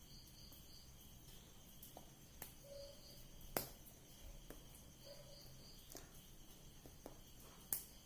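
Near silence with faint high chirps in short pulsed groups, three groups a couple of seconds apart, and two sharp clicks, one about three and a half seconds in and one near the end.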